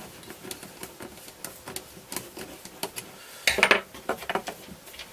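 Small metal bolts, nuts and an Allen key clicking and rattling against a carbon-fibre bracket and the plastic transmitter case, with a louder clatter about three and a half seconds in.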